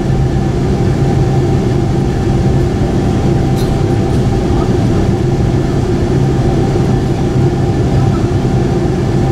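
Steady cabin noise of a Boeing 747-8i rolling slowly on the ground: the low hum of its GEnx-2B engines at low power over an even rumble from the airframe and wheels.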